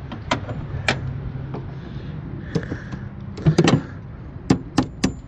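Sharp clicks and knocks, about eight of them, irregularly spaced, over a steady low hum.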